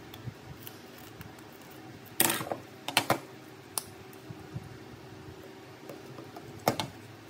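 Small hard clicks and taps of tools and small phone parts being handled and set down on a work surface. There are about five, the loudest about two seconds in and another near the end, over a faint steady hum.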